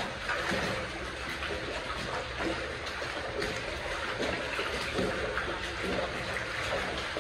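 Water running and trickling steadily, an even rushing noise with faint scattered clicks.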